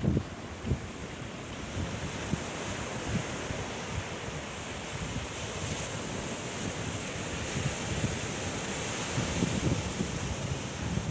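Ocean surf as a steady wash, with wind buffeting the microphone in irregular low thumps, strongest near the start and again toward the end.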